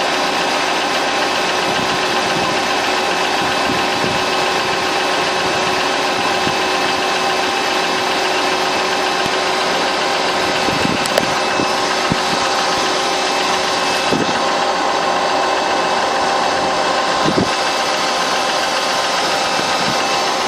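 Mercedes-Benz W211's M112 V6 petrol engine running steadily with a knock in it, the fault being recorded. A few sharper knocks stand out in the second half.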